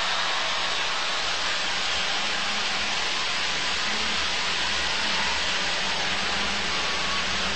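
Arena crowd cheering and applauding, a steady loud wash of noise.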